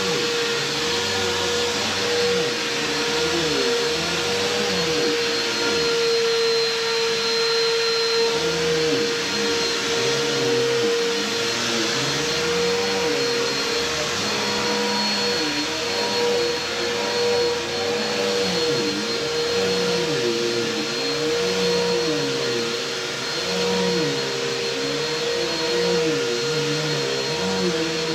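Bissell PowerForce bagged upright vacuum cleaner running, its motor holding a steady whine over a dense rushing hiss. The pitch underneath wavers up and down every second or two as it is pushed back and forth over the carpet.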